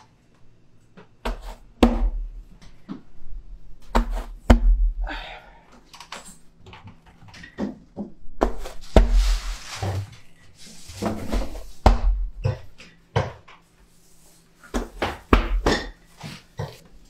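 Irregular knocks, slaps and thumps of dough and a baker's tool being handled at a clay tandoor oven, with a rustling scrape about nine seconds in.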